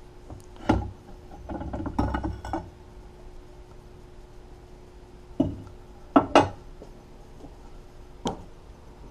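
Clinks and knocks of metal as the cast-iron pulley cover of an old Atlas drill press is lifted off and handled: a scatter of separate impacts, with two sharp knocks close together about six seconds in.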